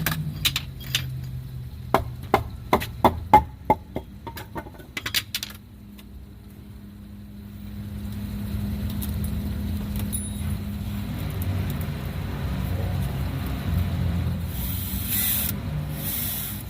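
Temporary wooden support being knocked loose and taken down: a run of sharp, irregular knocks and clatters over the first five seconds or so. Then comes a low steady rumble, with two short hissing bursts near the end.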